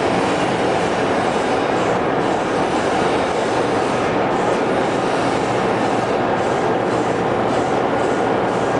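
Oilgear 60MN hydraulic open-die forging press running, a loud steady mechanical drone with no separate strokes or impacts.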